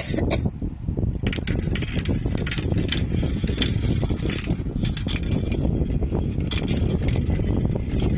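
Marbles rolling along a marble run track: a steady low rumble with frequent irregular clicks as they knock against the track and each other.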